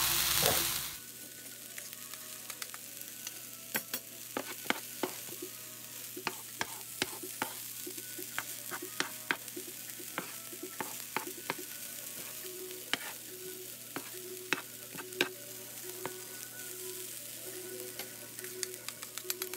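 Fried rice sizzling on a hot flat-top griddle while a spatula stirs it, with many irregular sharp clicks and scrapes of the spatula on the griddle. The sizzle is louder for the first second, then steady.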